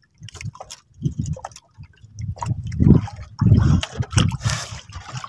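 Sea water sloshing and slapping against the hull of a small outrigger boat in irregular surges.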